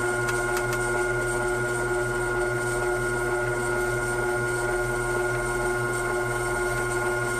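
Ultra wet grinder's motor running steadily, turning the dough-kneading attachment through wheat dough: an even hum with a steady whine above it.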